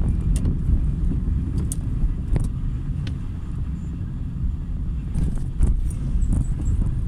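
Car driving on a rain-wet street: a steady low road and engine rumble, with scattered sharp ticks.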